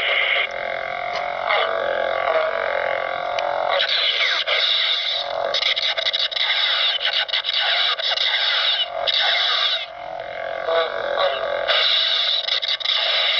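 Electronic lightsaber hum from an UltraSound 2.5 sound board, steady throughout, with repeated swing sounds that rise and fall in pitch as the lit hilt is moved about.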